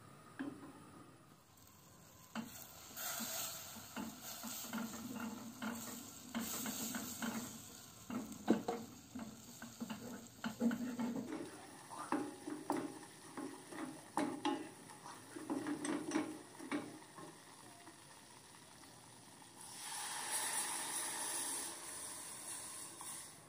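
Wooden spatula stirring and scraping a sizzling butter-and-flour roux around a stainless steel saucepan, in many quick strokes. Near the end, milk is poured into the hot roux with a steady rushing hiss lasting about three seconds.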